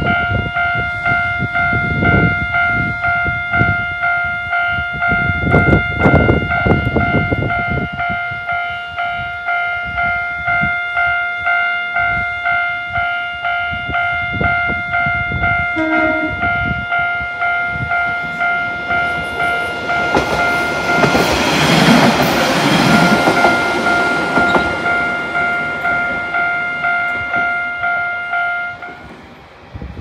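Japanese level-crossing alarm ringing its JNR-style electronic bell, an even, repeating ding, with a train passing over the crossing about two-thirds of the way through. The bell stops shortly before the end as the crossing clears.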